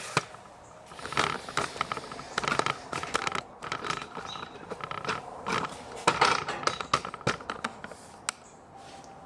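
Irregular knocks, clicks and scrapes of the camera being handled and moved about, with no steady motor sound.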